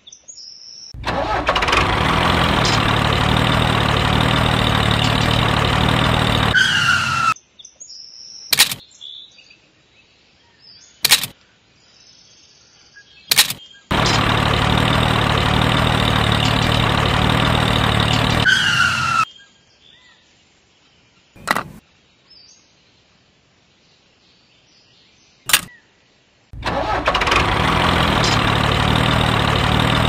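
Tractor engine sound running steadily in three stretches of about five to six seconds, each starting and stopping abruptly. A few short clicks fall in the quieter gaps between them.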